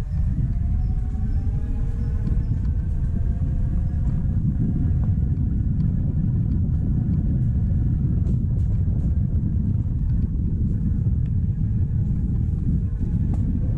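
Gogoro electric scooter riding over a rough dirt trail: a steady low rumble of ground and wind noise, with the motor's whine rising in pitch over the first couple of seconds and then holding steady. A few sharp clicks sound in the second half.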